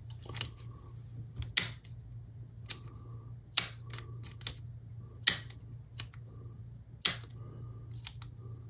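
Atlas HO/N under-table switch machine being tested from its control switch: the solenoid throws back and forth as the buttons are pressed, giving a series of sharp clicks. The four loudest come about every two seconds, with lighter clicks between them, over a steady low hum.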